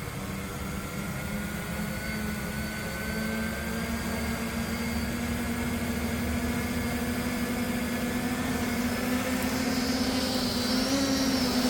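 Octocopter's eight brushless motors and propellers running with a steady hum that slowly rises in pitch and grows louder, with a higher whine coming in near the end. It is flying with two of its propellers broken.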